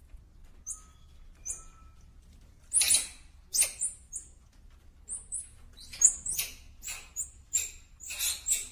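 A small animal giving many short, very high-pitched chirps, each falling slightly in pitch: a few scattered ones at first, then coming thick and fast from about three seconds in, over a faint low hum.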